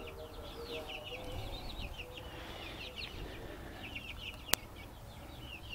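Young kampung chickens peeping: many short, falling high chirps in quick succession, with a single sharp click about four and a half seconds in.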